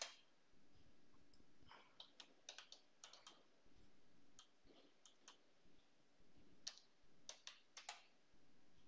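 Faint computer keyboard key clicks, scattered and irregular, coming in short runs as a command is typed and edited.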